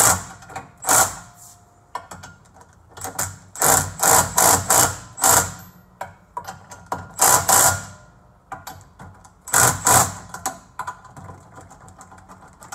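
Cordless driver with a socket running skid-plate bolts down in a series of short bursts, each under a second, with pauses between. The bolts are being snugged to a rear differential skid plate, not yet torqued.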